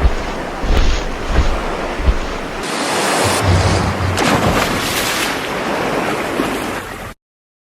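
Ocean surf sounding steadily, with low rumbling gusts of wind on the microphone in the first couple of seconds; it cuts off abruptly about seven seconds in.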